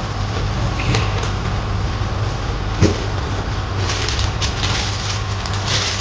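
Exhaust-system packaging being handled during an unboxing: a single knock about three seconds in, then crinkly rustling near the end. All of it over a steady low hum.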